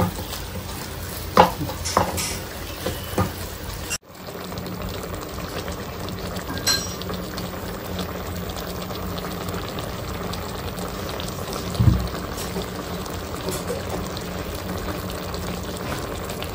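Wooden spoon stirring mutton keema in a pan for the first few seconds. After an abrupt break, the keema simmers steadily in its added water on the gas flame, with one dull thump about twelve seconds in.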